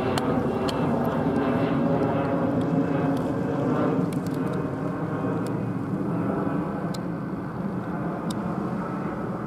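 Jet airliner's turbofan engines heard from the ground as it climbs out overhead after takeoff: a steady rumbling jet roar that slowly fades toward the end.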